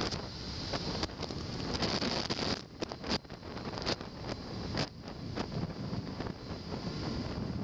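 Wind buffeting the microphone of a camera mounted on a moving motorcycle, over the low running noise of the bike's engine. The buffeting dips briefly about three seconds in.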